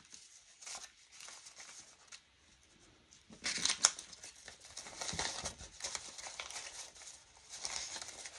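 Paper dollar bills rustling and crinkling as they are handled and sorted, softly and on and off, with a louder flurry a little over three seconds in.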